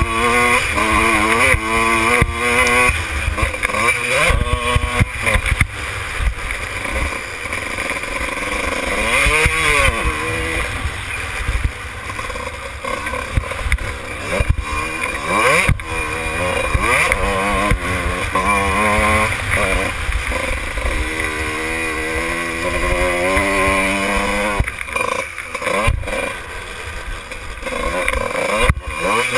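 Kawasaki KX125 two-stroke single-cylinder engine being ridden hard, revving up and down as the throttle opens and closes, its pitch climbing and dropping over and over. Wind rumble on the bike-mounted camera's microphone runs underneath.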